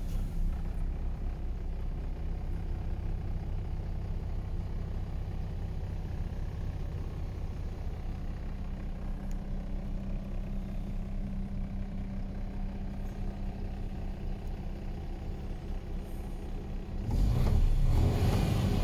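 MAN TGA 26.400's 10.5-litre inline-six diesel idling steadily in neutral, heard from inside the cab. About a second and a half before the end the sound grows clearly louder.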